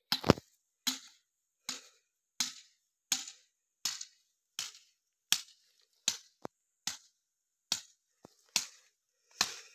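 A papaya tree being rocked back and forth by hand at its base to loosen its roots before it is bent over: a regular series of sharp snapping cracks, about one every 0.7 seconds.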